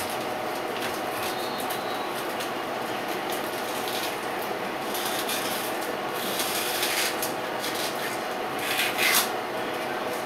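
Rustling and rasping scrapes from rummaging through cat food in a lower kitchen cabinet, heaviest from about five to seven seconds in, with the loudest rasp about nine seconds in, over a steady household hum.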